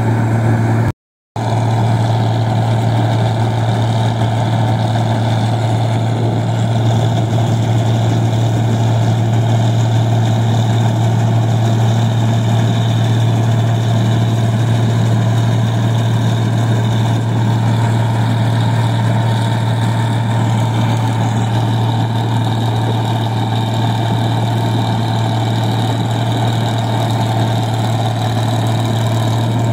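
New Holland 1545 combine harvester running steadily while harvesting rice, its engine and threshing drives making a constant low hum. The sound drops out for a split second about a second in.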